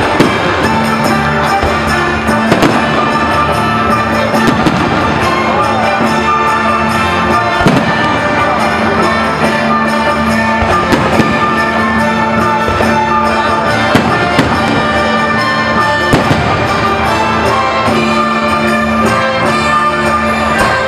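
Fireworks bursting again and again over loud orchestral music with brass.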